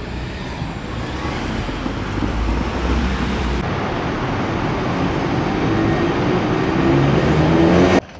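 A motor vehicle running and speeding up, its pitch rising as it grows louder. It cuts off suddenly near the end.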